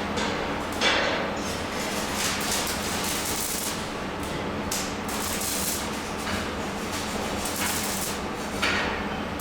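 Welding-shop work noise: a steady crackling hiss over a low hum, with a few brief sharper bursts about a second in, midway and near the end.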